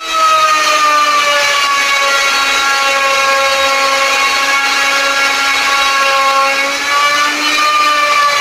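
Electric power tool motor running with a steady high whine whose pitch sags slightly and then recovers about seven seconds in, as the load on the tool changes.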